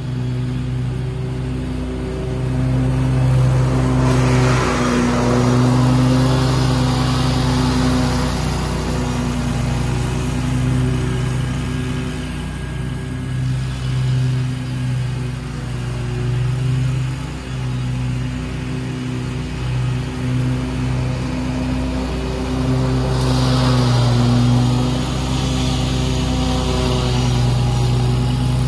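Scag Tiger Cat II zero-turn mower's engine running steadily under load with the blades cutting grass. A rushing hiss swells twice, at about four seconds and again about twenty-four seconds in.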